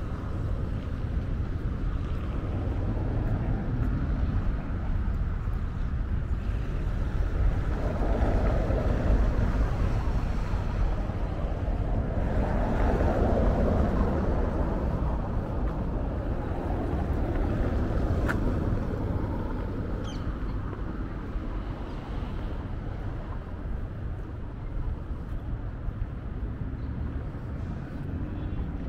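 Outdoor city street sound: traffic going by over a steady low rumble, with a vehicle swelling past about a third of the way in and another around the middle. There is a single sharp click a little later.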